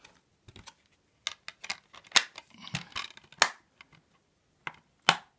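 Clear plastic Blu-ray cases being handled: a scattering of sharp plastic clicks and clacks, the loudest about two and three and a half seconds in and again near the end.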